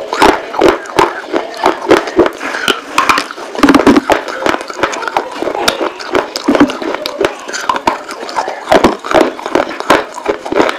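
Close-miked crunching and chewing of baked terracotta clay pot pieces: irregular sharp crunches, several a second, as the brittle fired earthenware is bitten and ground between the teeth.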